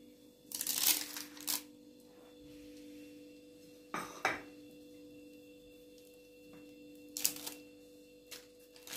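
Kitchen things being handled: brief clatters and scrapes in three short bunches, near the start, in the middle and near the end, over a faint steady hum.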